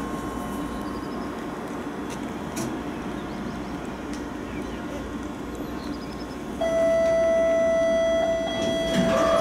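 Tram standing at a stop with a steady low hum from its equipment. About two-thirds of the way through, a loud, steady single-pitched warning tone starts and holds for several seconds: the tram's door-closing signal before departure.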